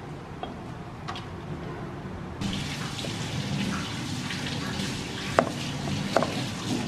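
A cleaver cutting small red onions on a wooden chopping board: a few sharp knocks of the blade on the board near the end, the first the loudest. Under them a steady hiss that starts suddenly a couple of seconds in.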